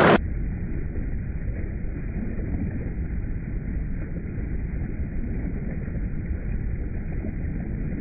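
Water cascading over rocks in a small stream, its sound slowed down with the slow-motion footage into a steady, deep, muffled rumble with no hiss on top. At the very start it drops suddenly from the louder full-range splashing to this rumble.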